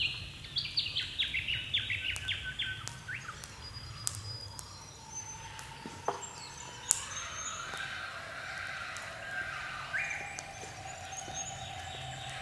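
Wild birds calling in an early-morning chorus: one bird gives a run of about ten short notes that step down in pitch over the first three seconds, and other birds chirp and whistle after it. A steady low hum runs underneath.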